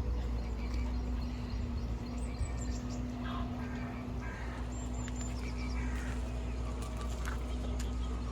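Outdoor ambience with a steady low rumble and a faint steady hum, under scattered short, high chirps of birds.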